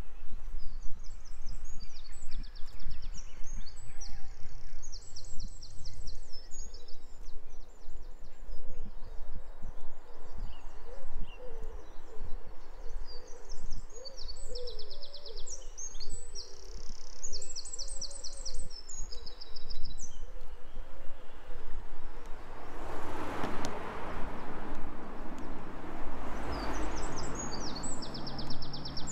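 A small songbird sings phrases of fast, high trills, in three bursts of song. Under it runs a steady low rumble, and near the end a rushing noise swells and fades twice.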